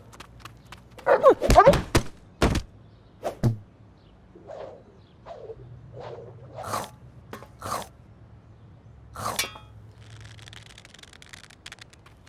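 Cartoon sound effects: a run of thuds and knocks, the loudest coming close together in the first two and a half seconds, then lighter scattered hits and short pitched blips, with a soft hiss for about a second and a half near the end.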